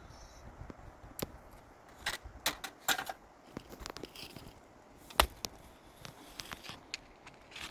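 A series of irregular sharp clicks and knocks, scattered unevenly with a few close together around two and three seconds in, and the loudest single knock about five seconds in.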